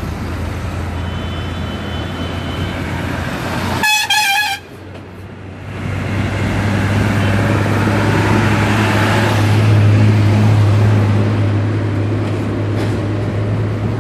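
Road traffic crossing a cable-stayed bridge: a steady low rumble of cars and trucks on the deck, swelling to its loudest around ten seconds in. A faint horn sounds in the first seconds, and a loud vehicle horn blares briefly about four seconds in.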